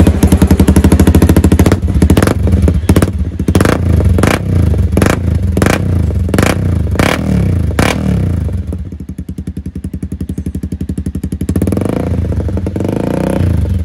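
Honda CBR250R's single-cylinder engine running through a hand-held, trial-fitted aftermarket Akrapovic-style slip-on muffler. It is revved in a string of quick, sharp throttle blips, settles to an idle about nine seconds in, and picks up again near the end.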